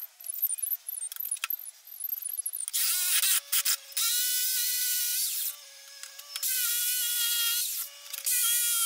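Corded jigsaw cutting into a Douglas fir board, switched on and off in several short runs starting about three seconds in, a steady motor whine over the blade's rapid chatter. Light handling clicks come before the first run.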